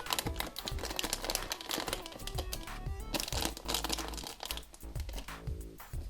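Crinkling of a blind-bag wrapper being handled and torn open, over background music.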